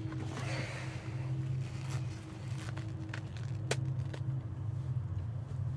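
Steady low drone of a car running, heard from inside the cabin, with a few faint clicks and one sharp click nearly four seconds in.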